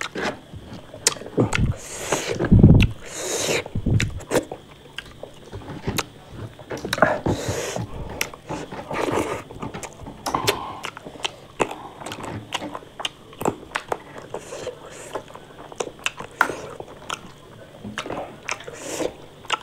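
A person eating close to the microphone: chewing and biting, with frequent short crunchy clicks.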